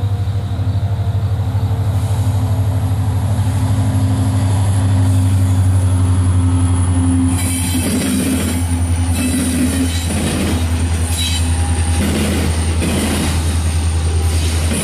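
Norfolk Southern EMD SD70M diesel locomotive approaching under power: its 16-cylinder two-stroke engine makes a loud, steady low drone. From about halfway in, as it draws close and passes, a rush of wheel-on-rail noise with a high squeal from the wheels joins the drone.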